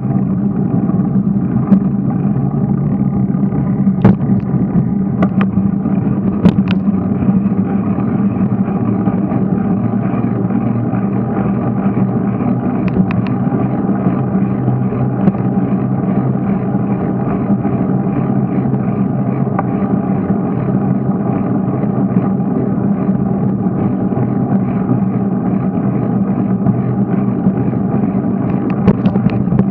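Steady rumble of wind and road vibration on a camera riding on a moving bicycle, with a few sharp knocks as it jolts over bumps in the pavement, several of them near the end.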